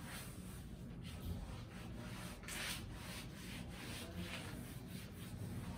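Chalk blackboard being wiped clean: a run of hissing rubbing strokes across the board, loudest about two and a half seconds in.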